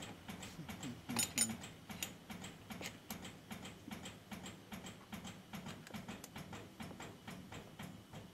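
Regular mechanical ticking, about three short clicks a second, each with a dull thud under it. About a second in comes a louder cluster of sharp metallic clinks, fitting brass weights being handled on a dead weight tester.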